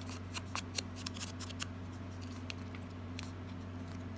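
Quick dry clicks and crackles of a small torn, crinkled piece of cardstock being dabbed with an ink sponge and handled. They come fast for about the first second and a half, then only now and then, over a steady low hum.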